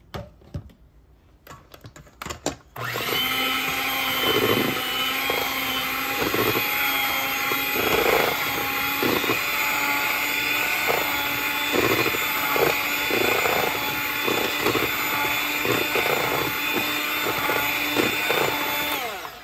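Proctor Silex electric hand mixer running steadily, its beaters working a thick cream-cheese mixture in a stainless steel bowl. A few clicks come first; the mixer starts about three seconds in and cuts off just before the end.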